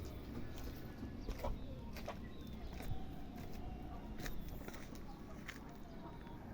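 Local backyard chickens clucking softly, with short calls and scattered sharp clicks over a steady low background noise.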